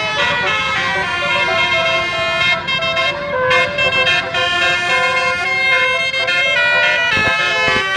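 Bus basuri telolet air horns playing melodic tunes, several horn tones sounding together and stepping up and down in pitch.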